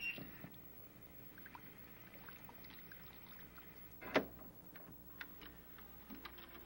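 Faint scattered clicks and ticks over a low hiss, with a short knock at the start and a sharper click about four seconds in.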